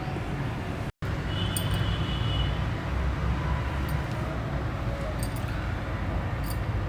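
Steady low rumble of background noise with a few faint light clicks, cut off briefly about a second in.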